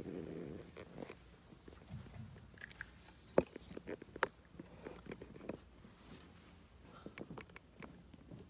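Scattered faint clicks and small knocks, with two sharper clicks about three and a half and four seconds in.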